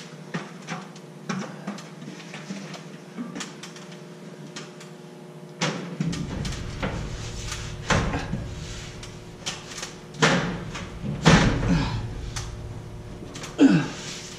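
A sheet of drywall being handled and pushed into place against steel stud framing: a run of irregular knocks, bumps and scrapes, busier and louder from about halfway through, over a steady low hum.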